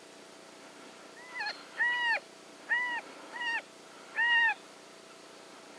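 Predator call sounding a series of five short wailing notes, each rising and then falling in pitch, spaced about half a second to a second apart. The calls stop about a second before the end.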